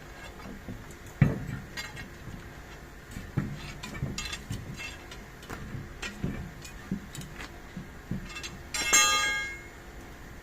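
Metal tyre-fitting tools knocking and clinking on metal, with a sharp knock about a second in and one ringing metal clang near the end that dies away within a second.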